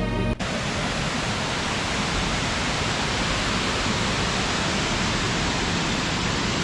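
Steady, loud rush of falling water from the Grawa waterfall close by. Background music cuts off just after the start.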